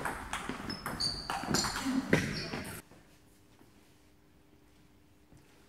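Table tennis doubles rally in a hall: sharp clicks of the ball on bats and table, short squeaks of shoes on the floor and a player's shout about two seconds in. Just under three seconds in it all stops, leaving only a faint steady hum.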